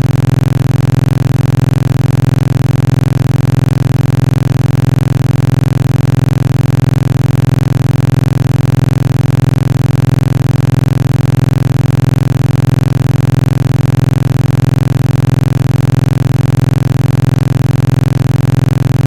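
Loud, steady synthetic buzzing drone: a strong low hum with many fixed tones above it, unchanging.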